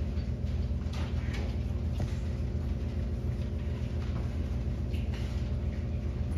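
A steady low mechanical hum, holding several constant pitches, with a few faint taps and rustles about one, two and five seconds in.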